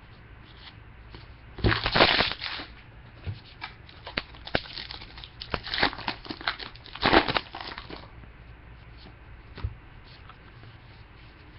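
A trading-card pack wrapper being torn open and crinkled, in a few short noisy bursts about two seconds in and again from about four to eight seconds, with small clicks and card-handling sounds between them.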